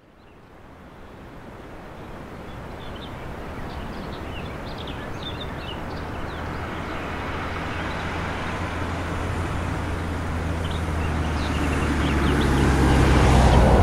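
Van driving on a road, its engine hum and tyre noise fading in and growing steadily louder as it approaches, loudest near the end.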